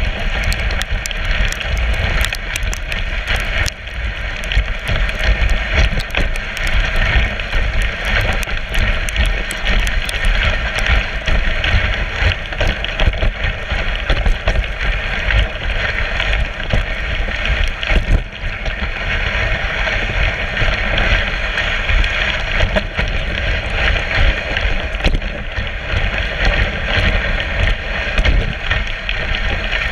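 Dogsled running over a snowy trail: a steady hiss and scrape of the runners on snow with many small knocks and rattles from the sled, over a constant low rumble.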